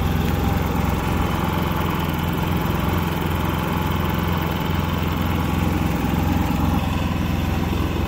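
Predator 3500 inverter generator's 212cc air-cooled OHV four-stroke engine running steadily at idle, its economy throttle switched on, on its first run.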